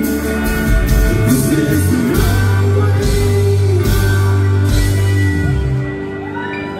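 Live rock band playing the loud close of a song: electric and acoustic guitars, bass and drums with repeated cymbal crashes. The drums stop about five seconds in and the last chord dies away.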